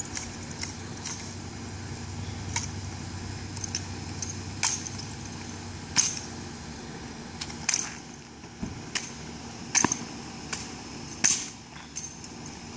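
Demilitarized 1903A3 Springfield drill rifle with bayonet fixed, spun, tossed and caught by hand: irregular sharp clacks and light metallic rattles at each catch. The loudest come about six, ten and eleven seconds in. A steady low hum runs underneath.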